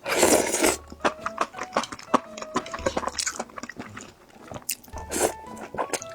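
Close-miked crunching and chewing of crisp food, many sharp crackly bites, with a loud crunch at the very start. Quiet background music plays underneath.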